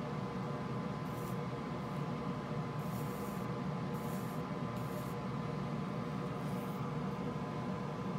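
Flux sizzling under a JBC soldering iron tip as it tacks the pins of a TQFP48 chip: about six short hisses over a second or so apart, over a steady low hum.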